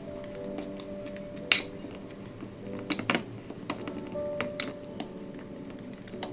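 Metal fork mashing ripe bananas in a ceramic bowl: irregular clinks and scrapes of the fork against the bowl, the loudest clink about one and a half seconds in.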